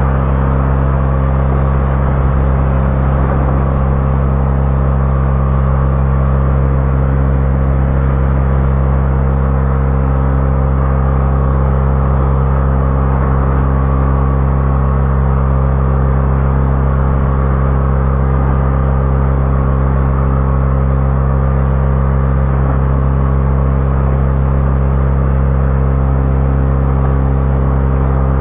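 Steady, loud mechanical drone with a strong low hum.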